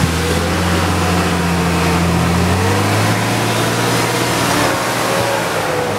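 Off-road truck's engine running steadily under load as it climbs a steep mud slope. A wavering higher whine runs above the engine note.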